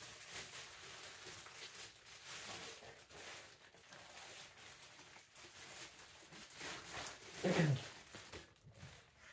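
Rustling and handling of packaging as a cordless stapler is unboxed, with scattered light clicks and knocks.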